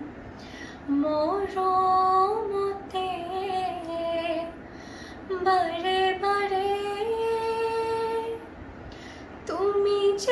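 A girl singing solo and unaccompanied, holding long, steady notes in phrases separated by short breaths, about one second in, around five seconds and again near nine seconds.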